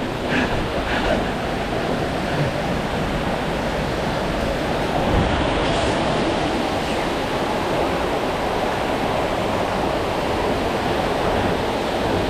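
Steady rush of fast-flowing water in an underground cave river, an even noise that holds throughout.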